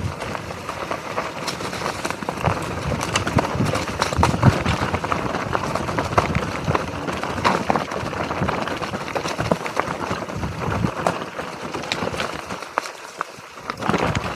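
Mountain bike descending a rough dirt trail: tyres rolling over dirt and dry leaves, with the chain and frame rattling and knocking over bumps. Briefly quieter near the end.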